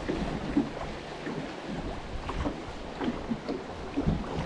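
Small waves lapping and slapping against a boat hull in irregular little splashes, with wind buffeting the microphone.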